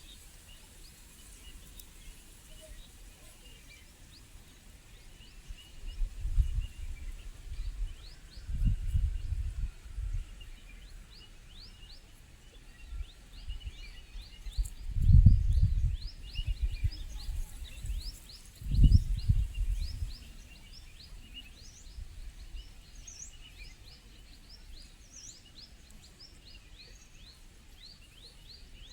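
Forest birds chirping, a steady run of short, quick high notes. Between about six and twenty seconds in, four or five loud low rumbling bursts come over them.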